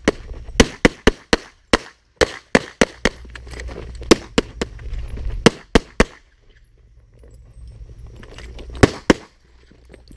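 Pistol shots fired in rapid strings of two to four while the shooter moves: about fifteen sharp reports over the first six seconds, a pause of nearly three seconds, then a quick pair near the end. A low rumble runs under the shots.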